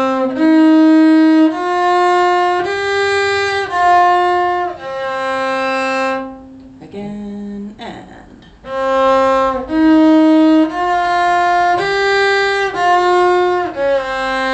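Cello bowing a six-note warm-up figure, C, E-flat, F, G, F, C, each note held about a second with the last C longer. The figure is played twice, with a short break between the two runs.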